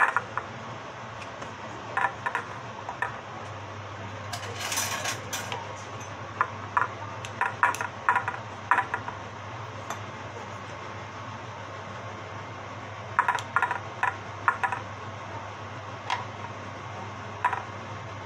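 A metal spoon clinking and scraping against a metal madeleine pan as thick batter is spooned into the shell moulds: light clinks in scattered clusters, with a short noisy scrape about five seconds in. A low steady hum runs underneath.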